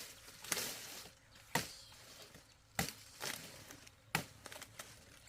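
Four sharp chopping knocks, about a second apart, consistent with a blade cutting through sugarcane stalks.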